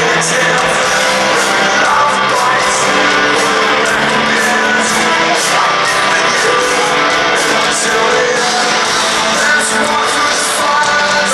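Rock band playing live, loud and steady: electric guitars and drums with cymbal hits, and a singing voice.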